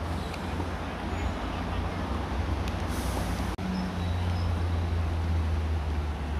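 Outdoor background noise: a steady low rumble with a faint hiss over it, broken by a momentary dropout about three and a half seconds in.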